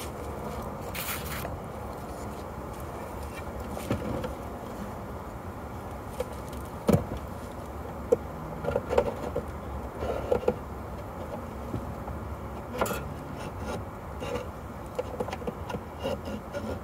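Wooden beehive equipment being handled at an open hive: scattered sharp knocks and clicks, the loudest about seven seconds in, with a run of them between eight and eleven seconds, over a steady low background noise.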